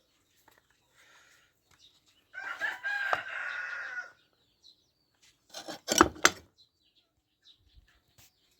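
A drawn-out animal call lasting about two seconds, followed about two seconds later by a few sharp knocks close together, the loudest sounds here.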